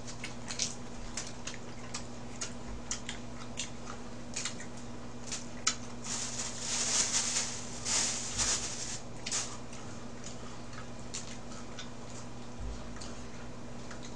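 Close-up eating sounds of a mouthful of raw mullet sashimi in a lettuce wrap: wet chewing with scattered sharp mouth clicks. A longer stretch of rustling comes about six seconds in and lasts about three seconds. A steady low hum runs underneath.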